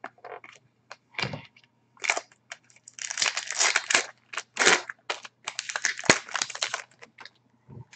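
Foil wrapper of a Fleer Retro hockey card pack being torn open and crinkled by hand: irregular crackling from about two seconds in until near the end.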